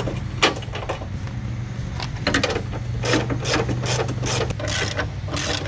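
Hand socket ratchet clicking in quick strokes as a bolt on a Jeep TJ tailgate reinforcement bracket is run in and tightened. A few single clicks come first, then a busier run of ratcheting from about two seconds in.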